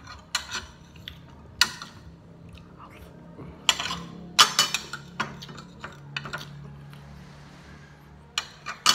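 Metal spoon and fork clinking and scraping against a plate during a meal, in scattered sharp clinks.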